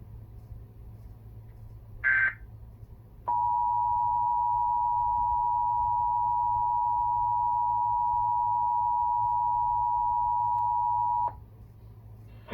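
Emergency Alert System broadcast: a brief high electronic burst, then the EAS attention signal. The attention signal is a steady two-tone sound near 850 and 960 Hz that holds for about eight seconds and cuts off sharply. A low hum runs underneath.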